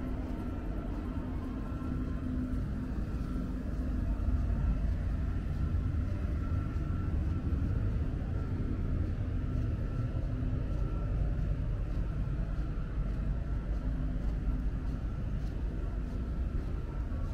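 City street ambience dominated by a steady low rumble of traffic, with a faint high steady tone coming and going.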